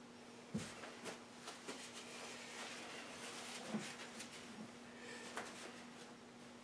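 Faint handling noises from fingers pressing a broken wooden piece back onto a gun stock: a few small clicks and taps with soft rubbing between them, over a steady low hum.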